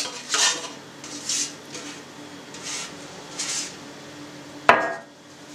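Diced pork back fat being scraped by hand off a metal tray into a stainless steel mixer bowl: several soft sliding scrapes, then one sharp knock near the end.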